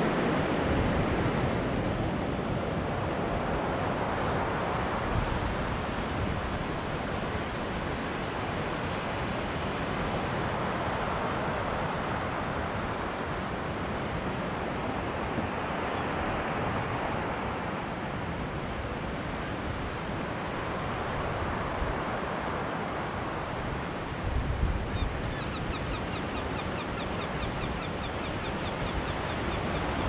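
Ocean surf breaking against rocks below a sea cliff, a steady wash of noise that swells and eases with each set of waves. Wind gusts across the microphone, with a low buffeting near the end.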